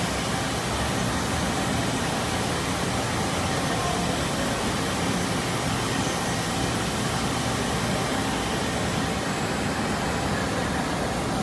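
Mori Seiki ZT1500YB CNC lathe running a cut inside its enclosure with flood coolant spraying: a steady rushing hiss that holds an even level throughout.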